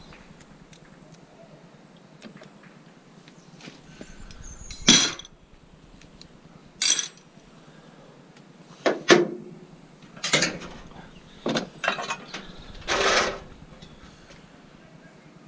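Scrap metal being handled: a series of about seven separate clanks and clinks at irregular intervals, some with a short metallic ring or rattle, the loudest about five and nine seconds in.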